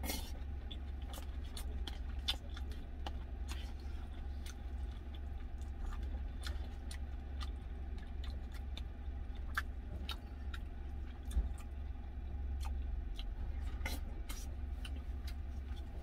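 A metal spoon clicking and scraping against a plastic food container, with chewing, over a steady low hum.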